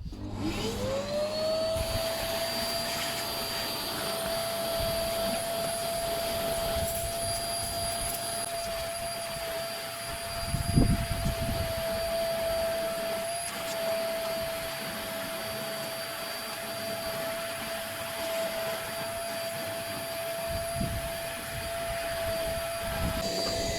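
Vacuum cleaner switched on, its motor whine rising in pitch as it spins up, then running steadily while hoovering the car interior. There are a couple of low bumps about eleven seconds in.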